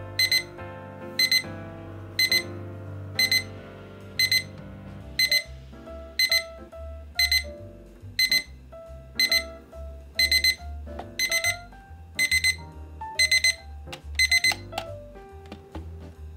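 Digital projection alarm clock's alarm going off: a short high electronic beep about once a second, turning into quick double beeps after about ten seconds and stopping near the end. Background music plays underneath.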